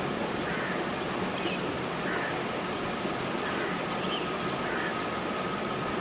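Steady outdoor hiss, with a faint steady high tone and soft short chirps about every one to one and a half seconds.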